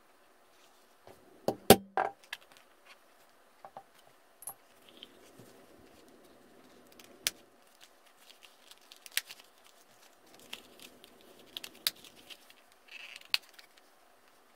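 Metal spring snaps on a leather card case clicking as they are pressed shut and pulled open: a quick cluster of sharp clicks about one and a half seconds in, then single clicks every couple of seconds, with soft rustling of the leather being handled between them.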